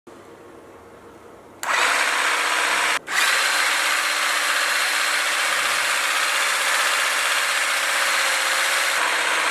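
Olive harvesting machine's motor starting about a second and a half in and running with a loud, steady buzz, cutting out for an instant about three seconds in and then running on.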